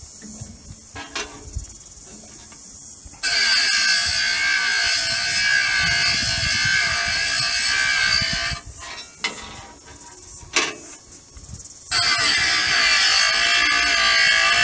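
Small electric blade sharpener with a diamond grinding wheel, powered from the sawmill's starter battery, whining as it grinds the teeth of a swing-blade sawmill's circular blade. It runs in two long stretches, from about three seconds in and again from about twelve seconds in, with short blips between.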